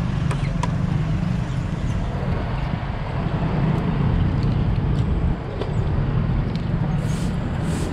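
Road traffic running steadily, a continuous low rumble, with a few light clicks early on and short hissing bursts near the end.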